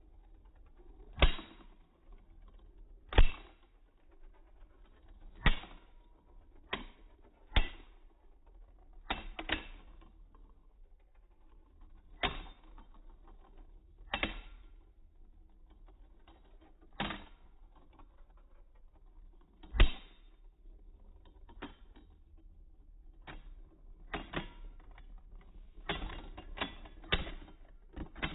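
Beyblade Burst spinning tops clashing in a plastic stadium: sharp plastic-and-metal clacks a second or two apart over a faint spinning whir, coming faster near the end.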